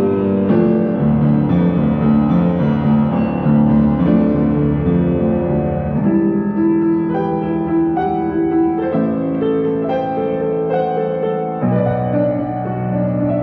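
Piano music: slow held chords changing every second or two, with a change of harmony about six seconds in and again near the end.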